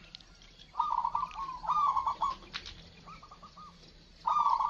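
Zebra doves (perkutut) cooing in quick, rolling phrases, three bouts that overlap one another, with thinner, higher chirps above them.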